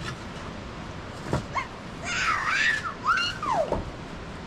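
A cat meowing: a few high, bending calls, the last one falling in pitch.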